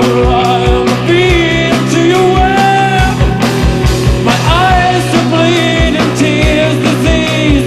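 Gothic rock band playing an instrumental passage live: a steady kick-drum beat under held bass notes, with a lead melody line that bends and slides in pitch.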